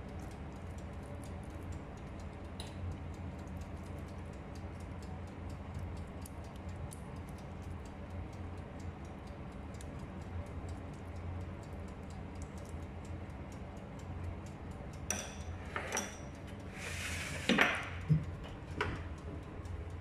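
Steady low hum with faint, rapid ticking while chicken pieces on a metal baking tray are brushed with sauce. Near the end come a few louder clinks and clatters of the metal tray being handled.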